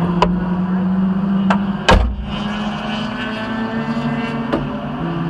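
Vehicle engine idling with a steady low hum. A few sharp clicks sound across it, and a single loud thump comes about two seconds in.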